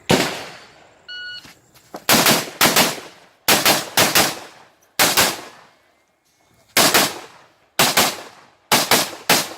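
Shot-timer beep about a second in, followed by rifle shots fired mostly in quick pairs, about eight pairs with short pauses between them as the shooter engages targets. A single sharp bang comes right at the start.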